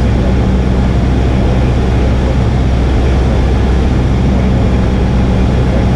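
Cessna 172R's four-cylinder Lycoming engine and propeller running steadily in flight, heard inside the cabin as a loud, even drone with a low hum.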